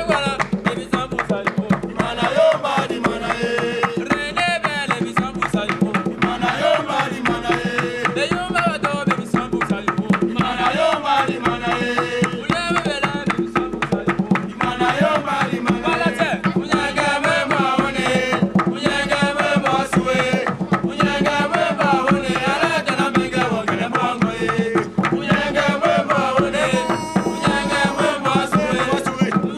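Traditional African drumming: rapid, steady hand-drum strokes from a drum ensemble, with group singing over them.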